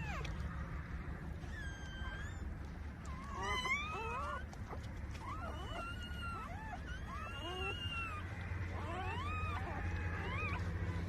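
Newborn puppies squealing and whining in thin, high-pitched, arching cries, many short calls through the whole stretch, over a steady low hum.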